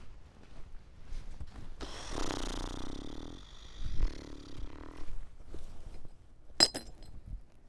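Footsteps on sandy, gravelly ground, with a rough rustling noise lasting about three seconds in the middle. Near the end comes one sharp plastic crackle as a discarded plastic bottle is picked out of a litter pile.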